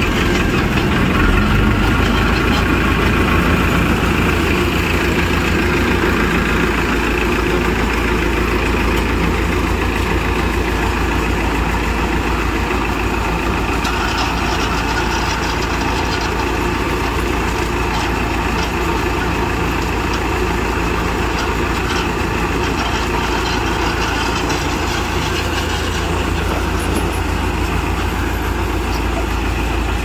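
Farmtrac 6055 tractor's four-cylinder diesel engine running steadily under load, driving a Panesar TMC 800 tractor-mounted combine harvester as it threshes soybean. The engine hum and the harvester's mechanical noise stay loud and even throughout.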